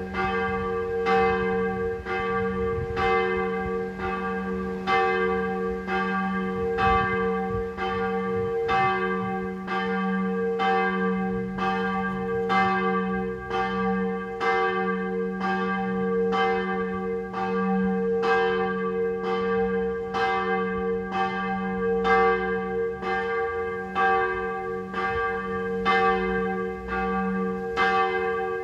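Church tower bells ringing, with a strike about once a second over a steady hum that carries between the strokes.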